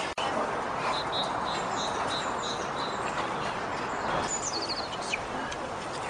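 Small songbirds singing: a run of short, even notes about three a second, then a quick falling trill of notes, over a steady background rush.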